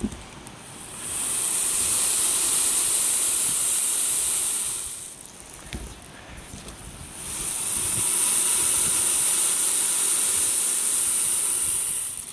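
Dried coriander seeds rolled to imitate ocean waves: two long swells of hiss, each building up, holding for a few seconds and fading away, like surf washing in and out.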